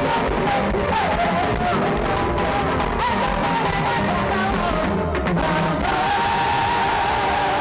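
Loud music with singing, a wavering melodic line over dense accompaniment.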